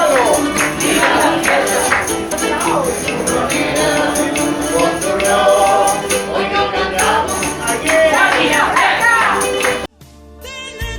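Background music: an up-tempo song with a sung voice and a jingling tambourine. It stops abruptly near the end, and a different song with singing starts just after.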